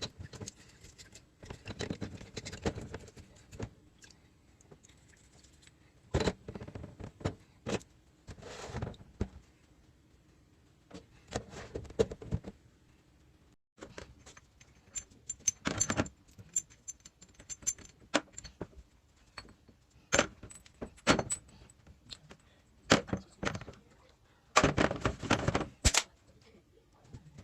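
Metal tools and small engine parts being handled: irregular clinks, clicks and knocks, with a few short scraping, rustling stretches.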